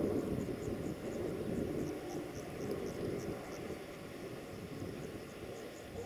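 An insect chirping in an even rhythm, about two to three short high chirps a second, over a steady low rumble that eases off over the first few seconds.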